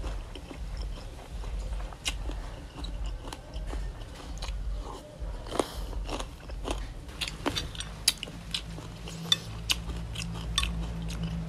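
Close-miked chewing of spicy boiled chicken feet: wet crunching of the skin and cartilage with sharp clicks and mouth smacks. The clicks come thicker and sharper in the last few seconds.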